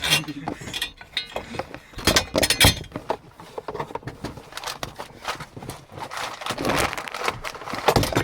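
Brazing torch hoses and fittings being gathered and coiled up by hand, with irregular knocks, clinks and rustling as the gear is handled.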